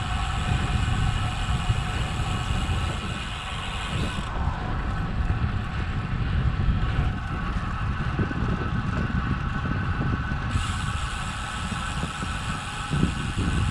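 Wind rushing over the microphone while riding a road bicycle, a steady low buffeting rumble.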